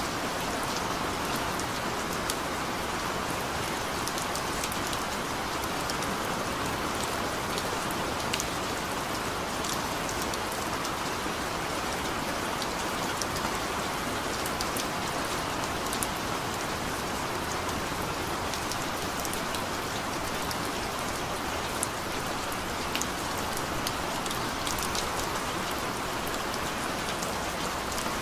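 Steady rain falling: a dense, even hiss with many small, sharp drop taps scattered through it.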